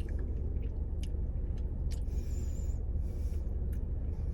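Steady low hum of a parked car's running engine and air-conditioning blower, with a few light clicks and a short rustle about two seconds in.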